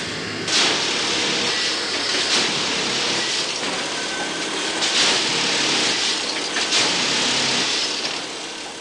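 Track tamping and lining machine at work on the ballast: its engine runs under a harsh rushing machine noise that swells sharply about every two seconds as the tamping units work the track.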